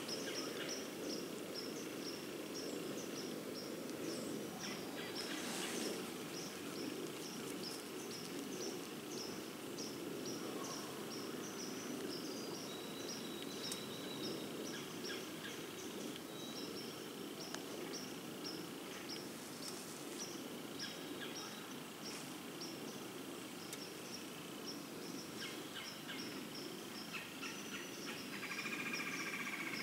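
Woodland ambience: a steady low rush under a high chirping that repeats evenly throughout, with a louder burst of higher sound near the end.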